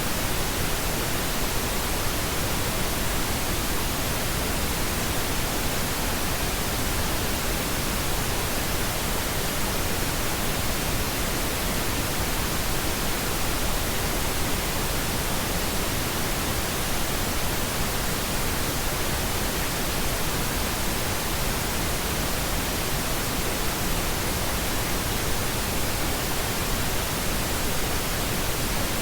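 Synthetic pink noise: a steady, unchanging hiss spread evenly across the whole range, with no events or changes.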